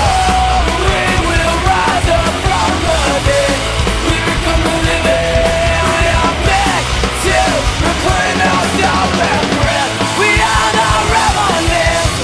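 Background rock music with a singing voice over it.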